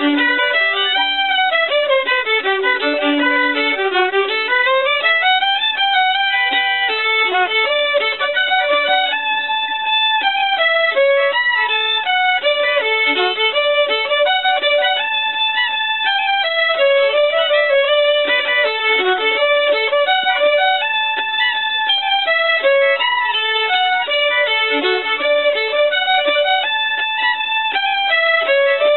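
Two violins playing together in a fast fiddle tune, with quick runs of notes rising and falling.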